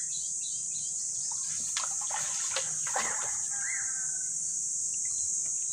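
Water splashing and dripping as a bamboo pole pushes a bamboo raft through shallow swamp water, over a steady high insect buzz. A few short rising-and-falling chirps come through.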